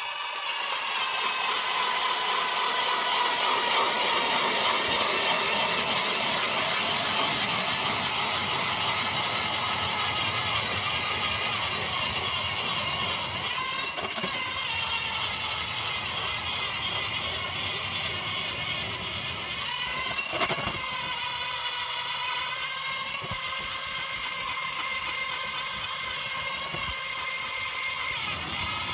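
ION X battery-powered ice auger drilling a hole through lake ice: a steady electric motor and gearbox whine over the grinding of the bit cutting ice. About twenty seconds in there is a short knock and the whine dips briefly in pitch before steadying.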